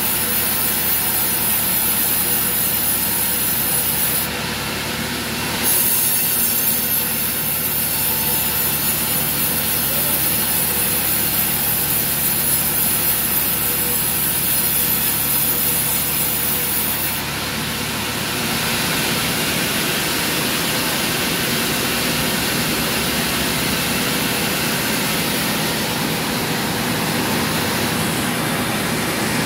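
Sawmill band saw running and cutting through a teak log, a steady loud noise. The high hiss of the cut dips briefly about four seconds in and falls away about two-thirds of the way through, leaving a duller machine noise.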